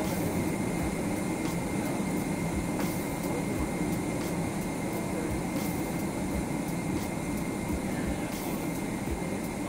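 Cabin noise inside a Boeing 777-200LR taxiing on the ground: a steady low rush of engines and air conditioning, with a faint steady high tone and a few light knocks.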